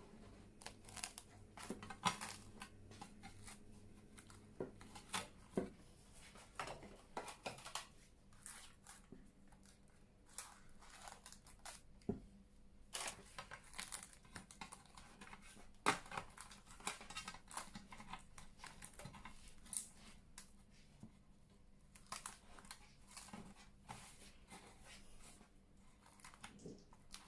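Irregular crinkling, rustling and light clicks from ingredients and kitchen things being handled by hand during bread-making.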